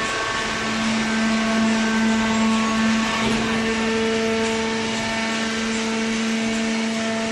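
Horizontal hydraulic baling press running: a steady mechanical hum with a held whine, typical of its electric motor and hydraulic pump under load, shifting slightly in tone about three seconds in.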